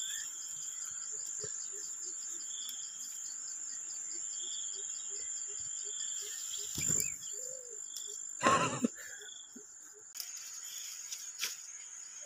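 A steady chorus of insects chirring, a high held tone over a fast pulsing chirr. Two duller knocks come about seven and eight and a half seconds in.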